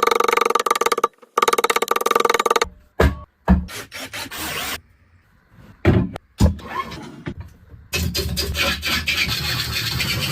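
Wood lathe with a turning tool cutting a spinning wooden blank. There are two stretches of fast, rhythmic chatter near the start, broken by abrupt cuts and short knocks, then a steadier scraping from about eight seconds in.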